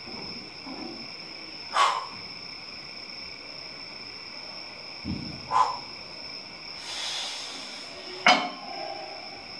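Pec-deck chest fly machine in use: three sharp knocks from the machine and its weight stack, a few seconds apart, with a dull thump before the second and a brief hiss before the third. A steady high-pitched whine runs underneath.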